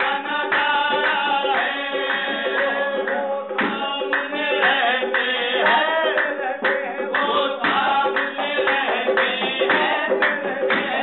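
Qawwali: a lead singer and a chorus of men singing to harmonium, with rhythmic hand clapping.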